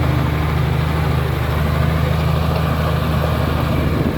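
Komatsu D83E bulldozer's six-cylinder turbocharged diesel engine running steadily with a deep, even rumble.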